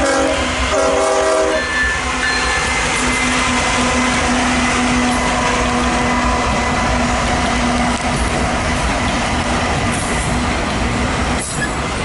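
Freight locomotive's air horn sounding a short chord in the first two seconds, a salute to the trackside railfan, over the steady noise of a passing freight train's locomotives and wheels on the rails.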